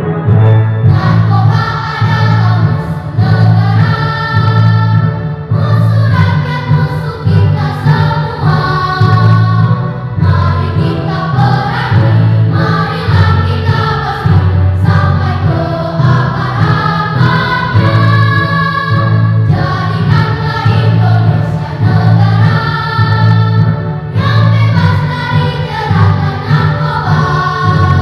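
Children's choir singing a patriotic song together to a pulsing keyboard accompaniment, the choir coming in about a second in.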